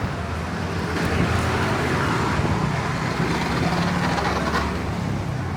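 Busy street traffic ambience from a crowded Indian street: motor vehicle engines running close by amid a dense background of street noise.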